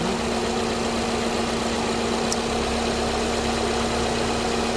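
Nissan Sentra four-cylinder engine idling steadily with one cylinder's ignition coil unplugged, so it runs on the remaining cylinders and sounds different: a check that the replaced coil cured the misfire.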